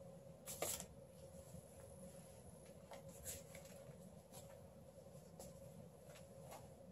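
Faint rustling of cloth as a pair of worn pants is pulled up and adjusted at the waist: a few soft brushes and ticks, the sharpest about half a second in, over a faint steady hum.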